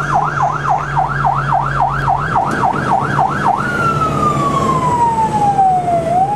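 Fire truck's siren heard from inside the cab over the running engine, on a fast yelp. About three and a half seconds in it switches to a slow wail, falling steadily in pitch and just starting to rise again at the end.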